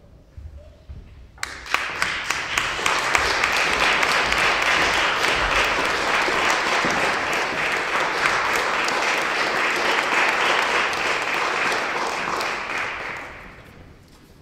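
Audience applauding, starting suddenly about a second and a half in, holding steady, and dying away near the end.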